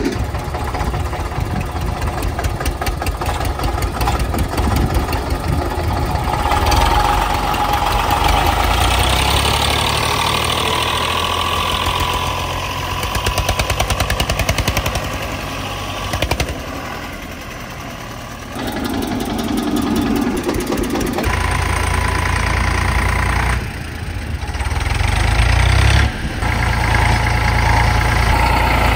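Tractor diesel engine running, its sound shifting abruptly several times.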